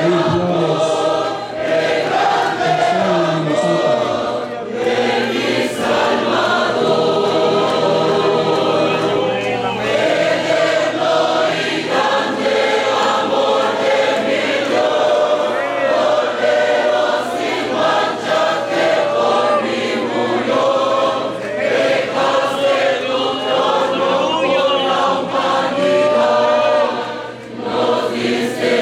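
A church choir singing a Spanish-language hymn with musical accompaniment, many voices holding sustained notes together.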